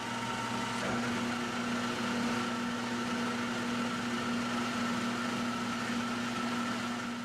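An electric machine motor running steadily, a hum with a constant whine, dying away near the end.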